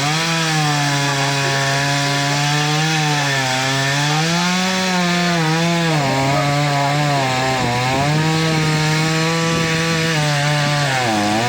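Two-stroke chainsaw running at high revs while cutting wood; the engine pitch sags and recovers several times as the chain bites under load.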